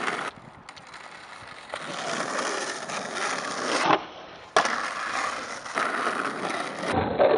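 Skateboard wheels rolling on asphalt. About four seconds in, the tail pops with a sharp clack and the board leaves the ground, then it lands with a sudden loud clatter about half a second later and rolls on. Another loud clatter comes near the end.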